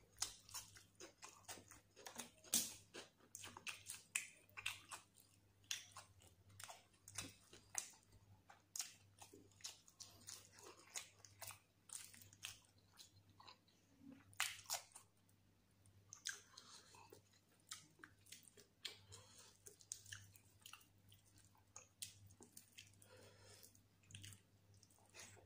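A person eating with their mouth: chewing and biting into fried fish and raw onion, with many short, sharp, irregular clicks and smacks.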